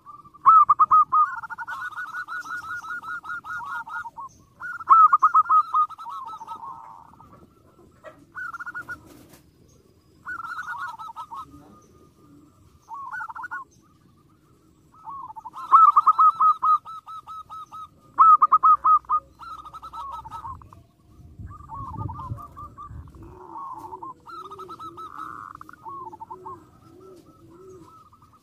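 Zebra doves calling: repeated bouts of rapid, high staccato cooing notes, some loud and others fainter, from more than one bird. Near the end there is a lower, slower cooing series.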